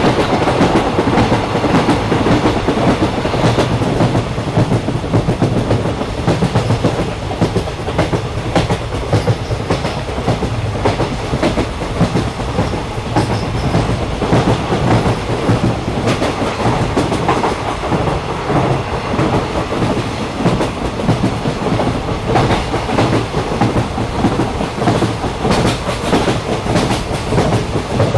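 Train running along the track: a steady rumble with the clickety-clack of wheels over the rails, with no horn or wheel squeal.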